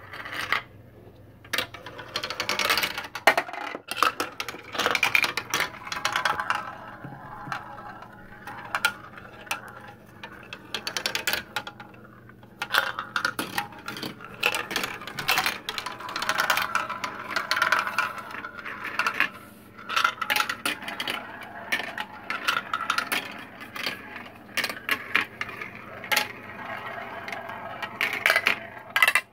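Marbles rolling and clattering through a plastic marble run: a continuous, irregular rattle of clicks as they drop through tubes and whirl around plastic funnels.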